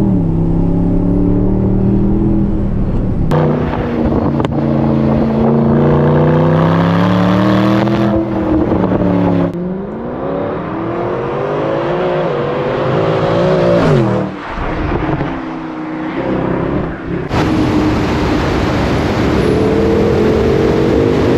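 Mercedes-AMG SLS's 6.3-litre naturally aspirated V8 on the move through a QuickSilver sport exhaust with the rear silencer section removed. It accelerates and eases off in several spells, its pitch climbing and dropping, and the sound shifts between the cabin and outside the car.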